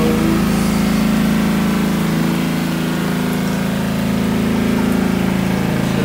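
Kuppet twin-tub portable washer's spin dryer motor running with a steady hum as the drum spins water out of the clothes.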